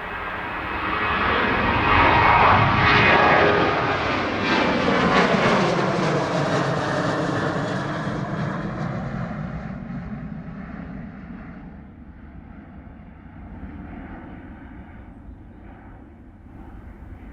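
Jet airliner's engines at takeoff power as it passes: loudest about two to three seconds in, then fading steadily as it climbs away.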